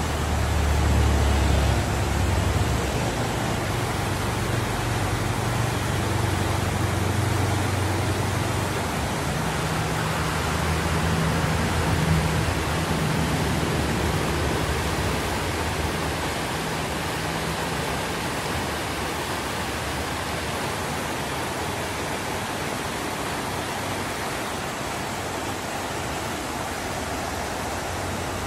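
Fast floodwater rushing down a swollen river channel, a steady, loud rush of water. A low rumble sits under it in roughly the first half and is strongest in the first few seconds.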